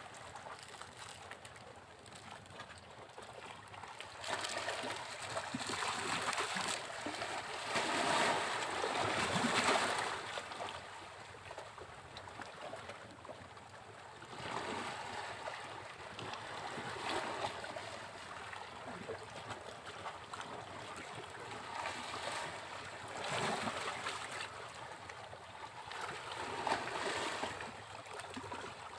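Sea waves breaking on a beach: a steady wash of surf that swells every few seconds as each wave breaks, the loudest surge about a third of the way in.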